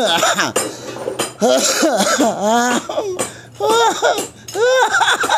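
People laughing and coughing in short bursts, with scattered sharp clicks and clinks.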